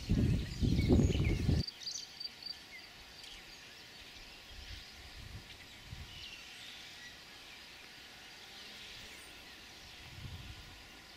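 Wind buffeting the microphone in loud low gusts for the first second and a half, then quiet open-air ambience with small birds chirping sparsely. A weaker gust comes near the end.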